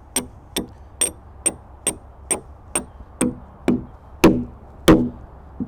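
Steady hammer blows on metal, about two a second, each with a short ring, growing louder toward the end.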